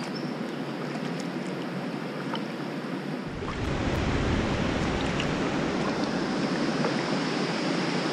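Steady rushing hiss of a distant waterfall heard from a kayak on the river, with a few faint ticks in the first seconds. About three seconds in it turns louder and fuller, with a low rumble underneath.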